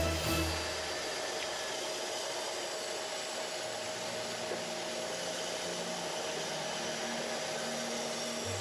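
Pressure-washer wand spraying water into the indoor unit of a split air conditioner during a cleaning: a steady hiss with a faint steady whine under it.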